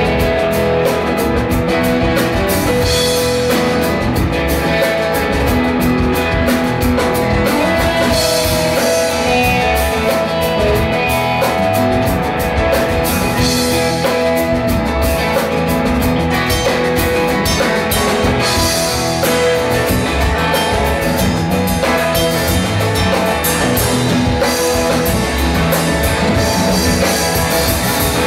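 Live rock band playing: electric guitars, drum kit and keyboard, steady and loud.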